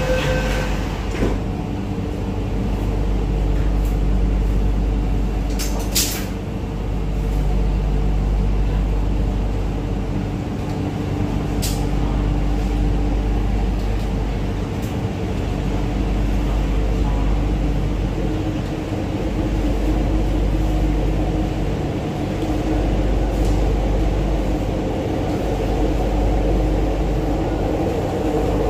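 Interior of an MTR Island Line Q-Train car running in the tunnel: a steady low rumble of wheels and running gear with a constant hum. There is a sharp click about a second in and a couple of brief high ticks at around six and twelve seconds.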